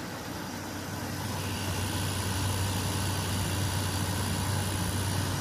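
2003 Whirlpool 5000 BTU window air conditioner (model ACD052MM0) running with its compressor on: a steady low hum under fan noise, growing gradually louder. The compressor sounds healthy.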